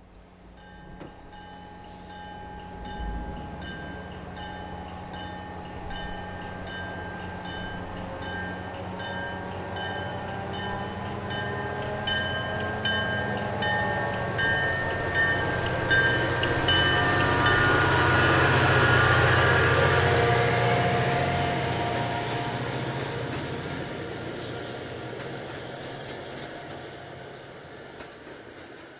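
A rumble carrying several steady, high ringing tones and regular clicking about twice a second. It swells to a peak about two-thirds through, then slowly fades.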